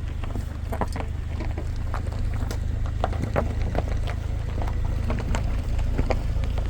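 Footsteps crunching and snapping through dry scrub and twigs, many irregular cracks, over a steady low rumble.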